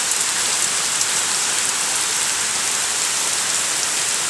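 Heavy rain pouring down, a steady hiss of drops splashing on the ground.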